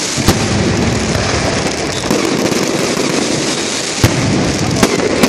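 Fireworks going off: a steady dense crackling hiss with sharp loud bangs about a third of a second in and twice near the end.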